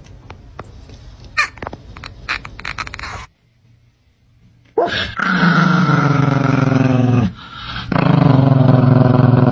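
Small dog growling loudly in two long drawn-out growls of a few seconds each, with a brief break between them.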